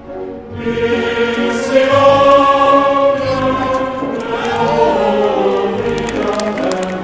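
Background music led by a choir of voices holding long chords, with a sliding tone that falls in pitch about five seconds in.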